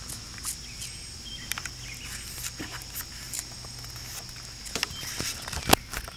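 Cats eating from a plate: small irregular clicks and ticks of chewing and lapping, with one sharper click about five and a half seconds in. A steady high chirring of crickets runs underneath.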